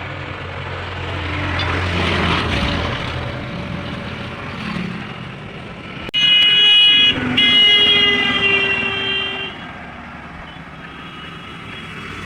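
Vehicle horn blowing twice, a short blast about six seconds in and then a longer one, over steady road traffic with a vehicle rumbling past earlier.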